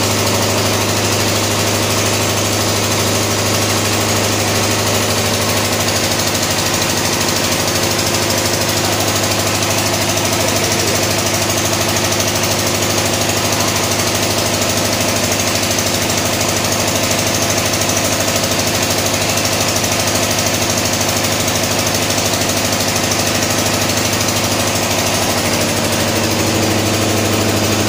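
Four-stroke single-cylinder diesel engine running steadily on a test rig, at an even pace with no change in speed or loudness.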